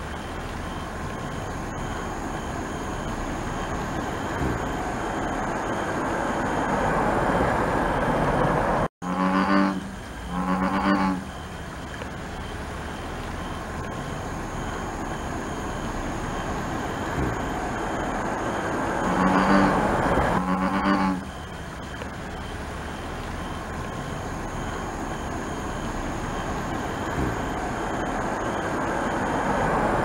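American bullfrog calling: two pairs of deep, droning calls about ten seconds apart, each call under a second long, over a steady background noise that slowly grows louder.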